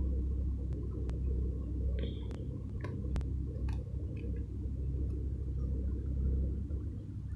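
Steady low rumbling hum with a few faint clicks scattered through it.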